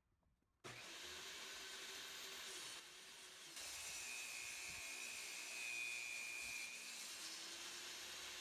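Porter-Cable worksite table saw running and ripping a piece of plywood. The saw sound comes in suddenly about half a second in, and a thin high whine rises out of it for about three seconds from the middle as the blade goes through the cut.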